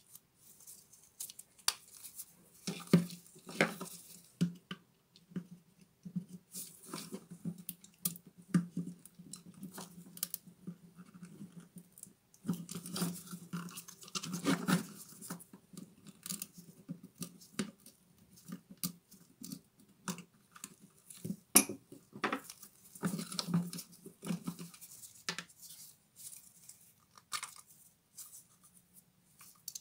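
Handling noises from taking apart the switch and wiring of a Bosch GWS 7-125 angle grinder: irregular small clicks, scrapes and rattles of plastic housing and metal switch parts under gloved fingers and a screwdriver. The clicks come in busier clusters around 3 seconds in, in the middle and again near 24 seconds.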